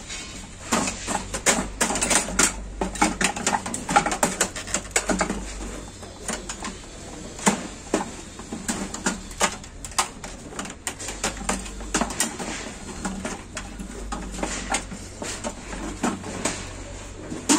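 Irregular clicks, knocks and metallic clatter of an old desktop PC's sheet-steel chassis and drive cage being handled and dismantled by hand, with power-cable plugs being worked loose.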